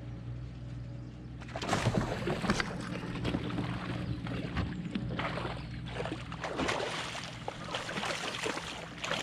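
Water splashing and sloshing against and around a kayak hull in irregular bursts, starting about a second and a half in, over a steady low hum.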